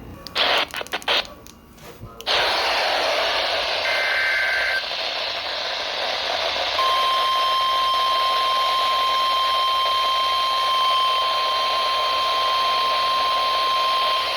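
NOAA Weather Radio receiver: a few clicks, then static hiss opens up about two seconds in, a short warbling burst of SAME data tones near four seconds, and from about seven seconds the steady single-pitched 1050 Hz warning alarm tone, announcing a severe thunderstorm warning.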